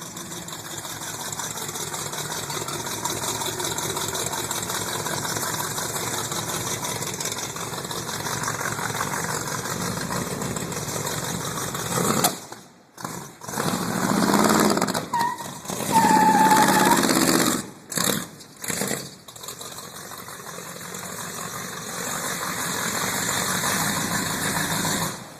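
A 1930 Ford's engine running, steady for about twelve seconds. After that it grows uneven, with louder surges and the sound dropping out briefly several times.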